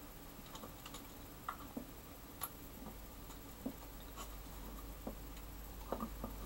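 Faint, scattered light clicks and taps, irregular and a dozen or so in all, as hands handle a wire lead at a power supply's screw terminal block.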